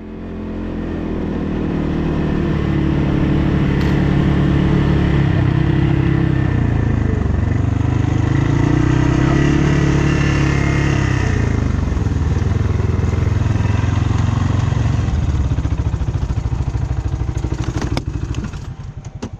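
ATV engine running under way, its pitch rising and falling with the throttle. It fades in over the first couple of seconds and fades out near the end.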